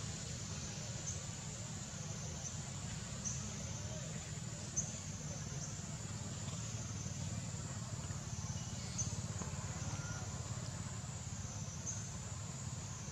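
Steady high-pitched drone of insects, with a low rumble underneath and a few faint clicks, the sharpest about five seconds in.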